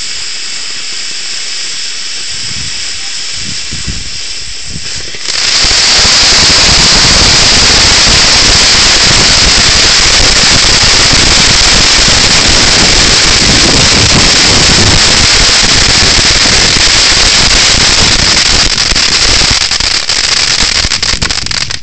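Fireworks: a steady hiss, then about five seconds in a sudden, very loud, continuous barrage of rapid bangs that lasts around fifteen seconds and overloads the phone's microphone, thinning to scattered cracks near the end.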